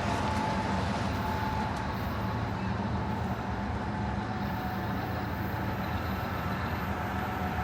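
Freight train rolling past at a crossing: a steady rumble of wheels on rail, with a faint, steady high squeal over it.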